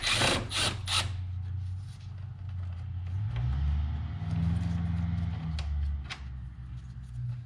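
Hand tool at work undoing the hex-head screw that holds a BMW E90's radiator in place: a few sharp clicks and scrapes in the first second, then scattered small ticks of metal and plastic, over a low steady hum.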